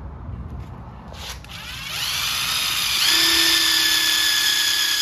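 Ridgid cordless drill driving a self-tapping screw through perforated steel strap. The motor whine starts about a second in, rises in pitch as it speeds up, and holds steady and loudest from about three seconds on.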